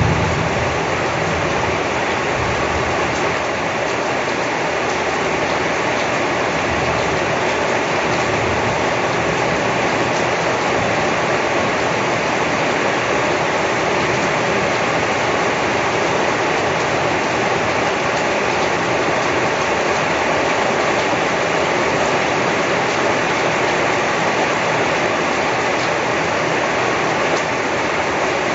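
Steady heavy rain falling, an even hiss with no letup.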